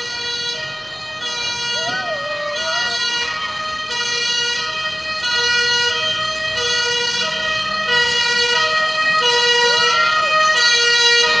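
Emergency vehicle's siren sounding a two-tone call, switching back and forth between a lower and a higher pitch and growing steadily louder.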